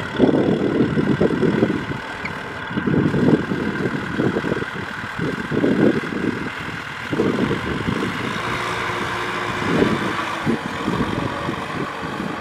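Kubota M6040 tractor's four-cylinder diesel engine running under load as it pulls a loaded trailer through mud, with an uneven low rumble that swells and fades every second or two over a steady engine note.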